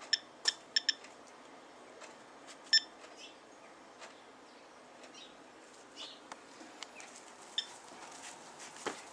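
SOEKS radiation dosimeter chirping at random intervals, one short high beep for each particle counted: four in quick succession in the first second, another near three seconds, then a long gap and a fainter one near the end. The sparse rate goes with a normal background reading of about 0.17 µSv/h. A handling thump comes near the end.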